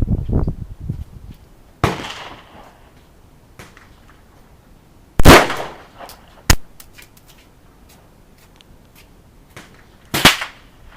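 Gunshots on an outdoor shooting range: four sharp shots at uneven intervals, each trailing off in an echo, the loudest about five seconds in. A low rumble sounds in the first second.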